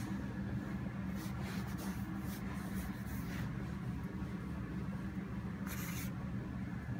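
A steady low hum with a few brief soft scratchy rustles, a cluster between one and two and a half seconds in and a stronger one near six seconds.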